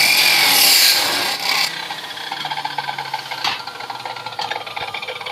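Metalworking in a welding shop: a loud rasping, scraping noise for the first couple of seconds, then quieter uneven scraping and rattling.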